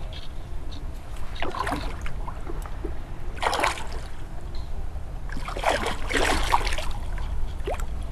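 A hooked carp splashing and thrashing at the water's surface in short bursts: about a second and a half in, again around three and a half seconds, and longest from about five and a half to nearly seven seconds, over a steady low rumble.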